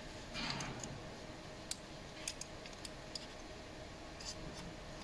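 Small metal parts and a hand tool being handled while a rod on a tube loading box is set in place and tightened: a brief scrape about half a second in, then about half a dozen light, sharp clicks at uneven intervals.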